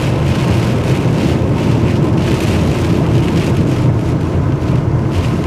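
Rain and gusty wind from a tornadic storm's rear-flank downdraft hitting a vehicle, heard from inside the cab as a loud, steady low rumble with a rain hiss, while the windshield wipers sweep the glass.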